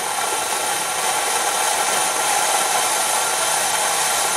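Compressed air hissing steadily, blown into the coolant pipe of a 6.6L diesel's oil cooler to show a leak at the pipe's O-ring where it enters the cooler.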